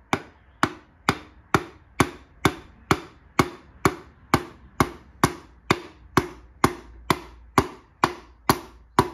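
The rubber-gripped handle end of a hammer taps the crown of a piston in a steady, even series of knocks, a little over two a second. This drives the piston and its ring-compressed rings down out of the ring compressor into the cylinder bore of a Mercruiser 3.0 four-cylinder block.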